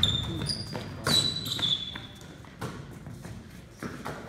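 Basketballs thudding on a gym floor, several separate bounces and catches echoing in the hall, with sneakers squeaking sharply on the court in the first half.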